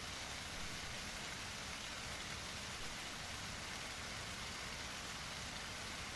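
Steady rushing noise of running water, even and unbroken, with no distinct splashes standing out.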